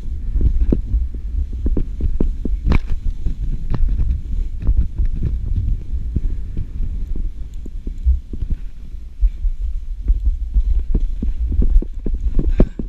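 Wind buffeting the microphone of a body-worn action camera during a downhill slide over snow: a steady low rumble with many irregular knocks and scrapes as the ride crosses bumps in the snow.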